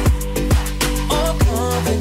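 Background music: a beat-driven track with a kick drum about twice a second over a deep, sustained bass line.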